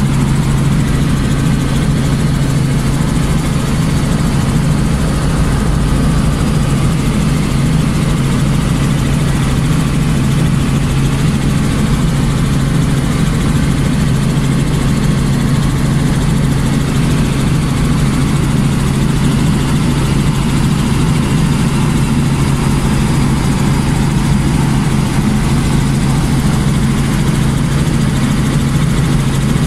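Helicopter engine and rotor drone heard inside the cabin in steady cruising flight: a loud, even, low hum that does not change.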